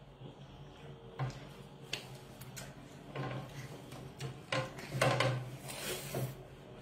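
Eating noises at a table: scattered light clicks and taps of fingers and food on a plate, with a couple of short rustling noises around the fifth and sixth seconds, over a low steady hum.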